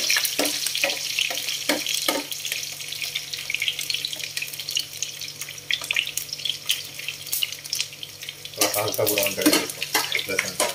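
Garlic cloves and mustard seeds frying in hot oil in a non-stick wok: a steady sizzle full of sharp crackles and pops as the mustard seeds heat, with a spatula knocking and stirring in the pan a few times.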